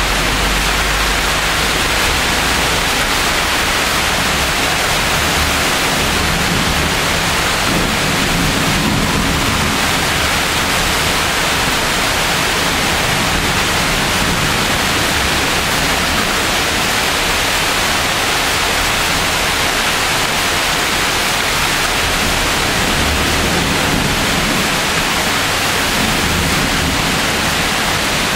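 Heavy thunderstorm rain falling steadily, a dense even hiss. Low rumbles of thunder swell about eight seconds in and again near the end.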